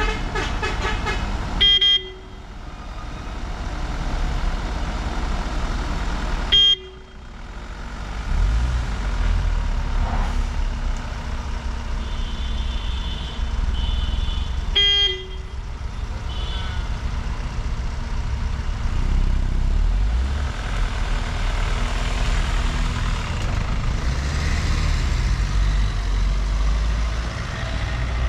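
Car engines running at low speed as they creep round a hairpin bend, a steady low rumble throughout. A vehicle horn sounds for the first couple of seconds, and there are three sharp loud cracks, about 2, 7 and 15 seconds in.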